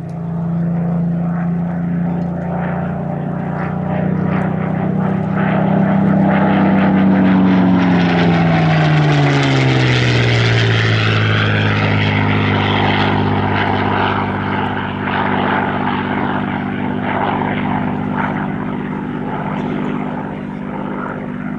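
Supermarine Spitfire's Rolls-Royce Merlin V12 engine in a low display pass: the engine note builds as it approaches, is loudest about nine seconds in, then drops in pitch as the aircraft passes and draws away, running on at the lower note.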